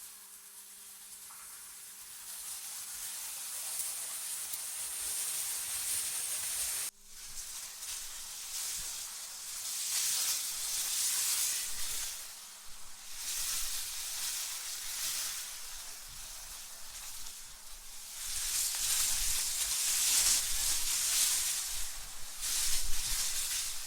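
Wind blowing in gusts: a hissing rush that swells and fades every few seconds, with a brief dropout about seven seconds in and a low rumble under the stronger gusts in the last few seconds.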